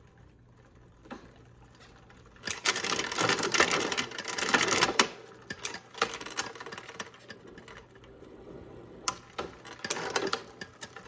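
Bicycle drivetrain of a Trek Dual Sport 8.3 (3x8) turned by hand: the chain runs over the chainrings and rear cogs with a fast mechanical clatter for a few seconds, then scattered clicks. It is being run to check whether the chain still rubs the front derailleur cage after a barrel-adjuster tweak.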